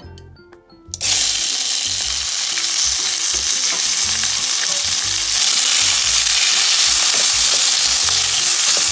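Roasted poblano chile strips sizzle loudly as they hit hot oil in a stainless steel skillet, starting suddenly about a second in and frying steadily after that. A wooden spatula stirs them through the oil.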